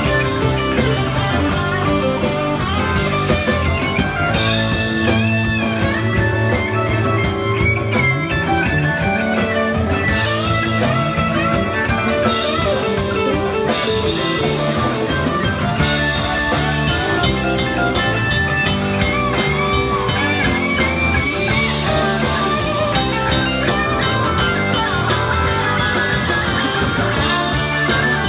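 Live rock band playing an instrumental passage: electric guitars, bass guitar and drum kit, with a lead guitar line of bent, wavering notes over the top.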